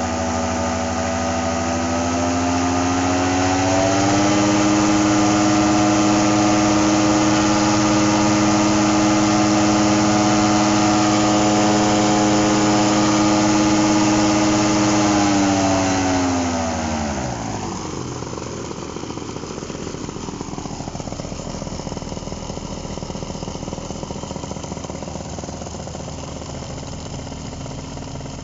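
Simonini Mini 2 two-stroke paramotor engine with a Bing float-bowl carburettor, propeller turning, revving up over the first few seconds toward 7000 rpm and held at high revs. About sixteen seconds in the throttle is cut and it drops straight back to a steady idle, a prompt return to idle showing that its earlier fault is cured.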